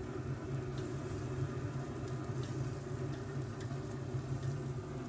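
Shrimp and skirt steak sizzling on the open grate of a pellet grill over a steady low hum. A few light clicks of metal tongs come through.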